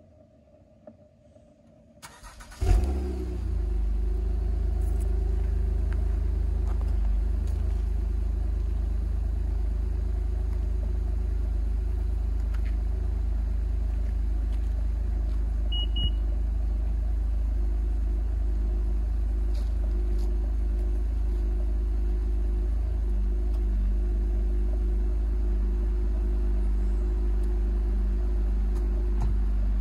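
2017 Honda Accord coupe's 3.5-litre V6 with a Borla axle-back exhaust, remote-started: a brief crank about two seconds in, a loud flare as it catches, then a steady low idle. A short beep sounds about halfway through.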